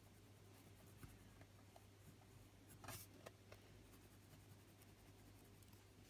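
Faint scratching of a Faber-Castell Polychromos coloured pencil tip on paper as it rubs loose pigment dust into the drawing, with a few soft scrapes, the clearest about three seconds in, over a steady low hum.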